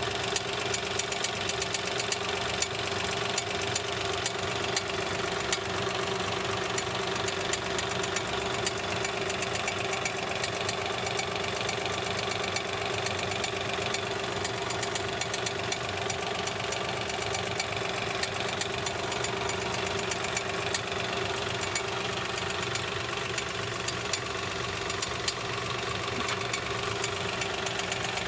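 Daewoo Matiz engine idling steadily, with a rapid, regular knocking coming from underneath the car.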